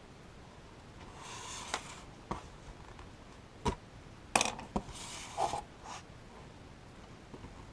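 Repair handling sounds: a plastic pry tool and fingers working on an iPad's glass screen, with about half a dozen sharp clicks and two short scrapes.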